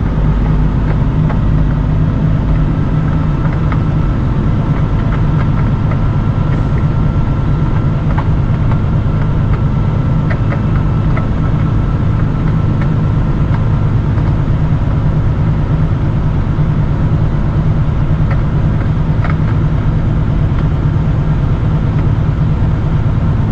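Peterbilt 579 semi truck running steadily down the road, a continuous low drone of engine and road noise.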